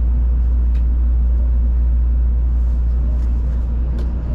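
Steady low rumble of a Tokaido Shinkansen N700-series train running, heard inside the passenger cabin, with a few faint ticks.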